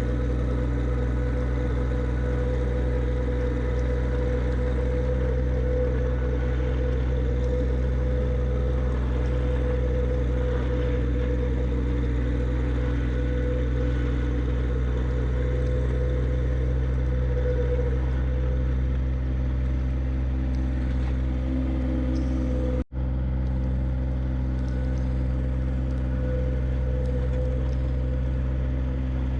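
John Deere 1025R subcompact tractor's three-cylinder diesel engine running steadily under load. The sound cuts out for a split second about 23 seconds in.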